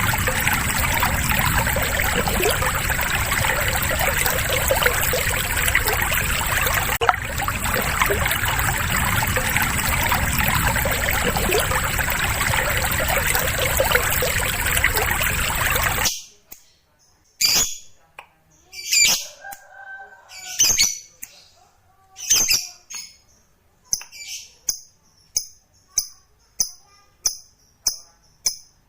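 Recorded lovebird song played as a training track: for about 16 seconds a dense, continuous chatter with a steady high whistle behind it. It then cuts suddenly to single sharp chirps about a second apart, which speed up into a quick run of pulses near the end.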